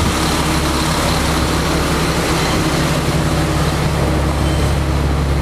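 A motor vehicle engine running steadily with a low hum, over a constant noisy rush of traffic.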